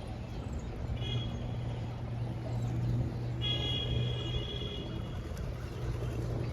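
A steady low engine hum, with two short high-pitched tones: a brief one about a second in and a longer one from about three and a half to five seconds.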